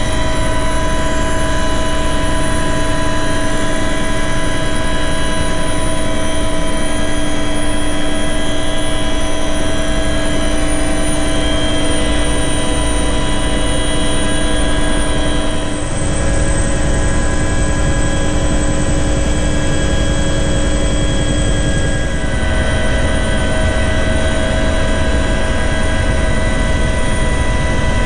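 Helicopter in flight heard from inside the cabin: a loud, steady drone of turbine and rotor with several steady whining tones over it. The tones shift slightly about halfway through and again a few seconds later.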